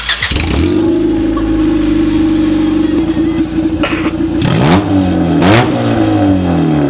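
A Honda Civic EG's four-cylinder engine starting and idling loudly with no exhaust fitted past the header. It is revved twice about two thirds of the way through, each rev a quick rise and fall in pitch, staying under about 3,000 rpm, then it settles back to idle.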